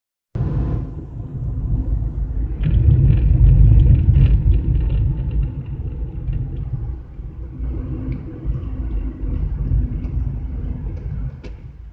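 Cabin noise inside a Tata Tiago NRG hatchback driving in city traffic, with no insulation under the bonnet: a steady low rumble of engine and road noise that swells loudest a few seconds in, with a few faint clicks.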